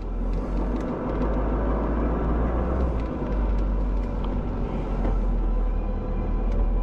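Steady low rumble of a road vehicle driving, engine and road noise running evenly.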